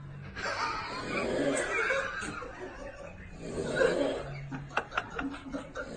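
A person snoring, one rough snore about four seconds in, while someone nearby snickers with stifled laughter, in short sharp bursts near the end.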